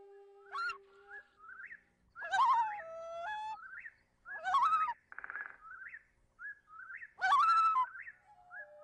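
Birdsong laid into the background music: loud sweeping chirps about every two seconds, short rising whistles between them, and a brief rattling trill about halfway through. A held instrumental note fades out about a second in.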